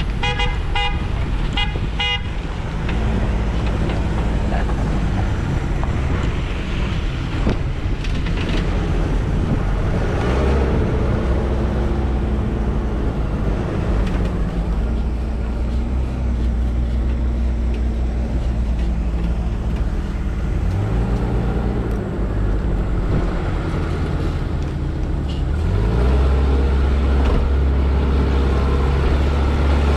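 Vehicle engine running steadily on an off-road drive, its pitch climbing three times as the revs rise. A quick run of short, high toots sounds in the first two seconds.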